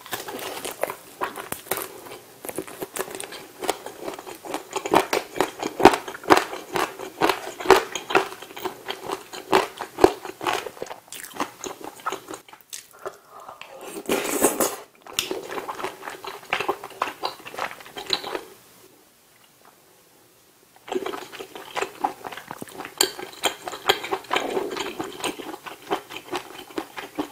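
Close-up chewing and biting of chicken, with many small wet mouth clicks and smacks. Just past the middle comes a louder slurp as a spoonful of spicy tteokbokki sauce is taken, and a couple of seconds of near quiet follow a little later before the chewing resumes.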